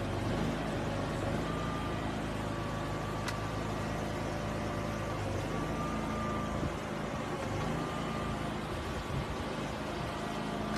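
Heavy construction machine's engine running steadily, a low hum with a faint high whine above it.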